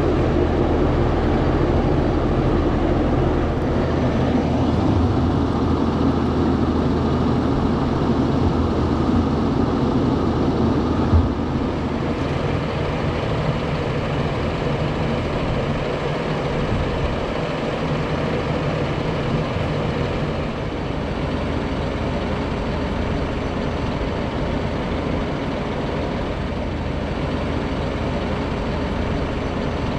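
Fendt 828 Vario tractor's diesel engine idling steadily, with a single short knock about eleven seconds in.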